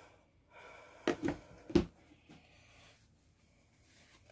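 Handling noise at a work table: a breathy rustle, then three sharp knocks in quick succession about a second in, the last the loudest.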